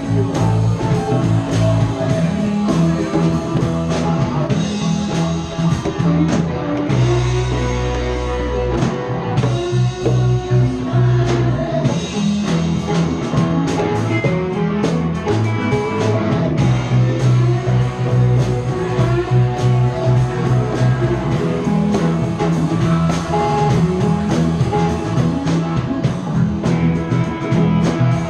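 Live rock band playing at full volume: electric guitars, bass, keyboard, drum kit and congas, with singing.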